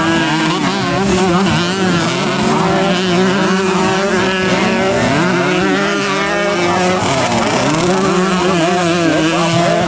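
Several racing motorcycle engines at high revs, their pitch climbing and dropping again and again as the riders go up through the gears and shift.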